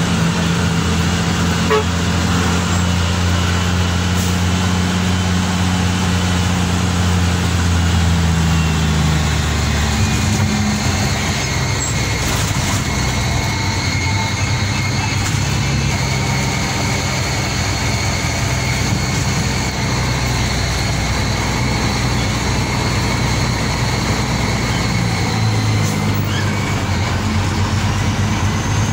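Mack CH truck's diesel engine running on the move, heard from inside the cab over road noise. Its note shifts about ten seconds in and again near the end, with a thin high whine above it.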